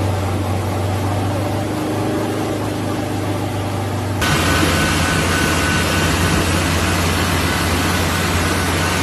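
Off-road 4x4 engine running steadily. About four seconds in, the sound cuts abruptly to a louder, noisier engine recording of another mud-covered 4x4.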